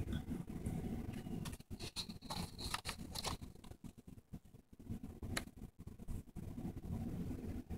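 Paper rustling and crinkling as comic pages are handled and turned, with scattered light clicks. A low rumble of handling noise comes at the start and again near the end.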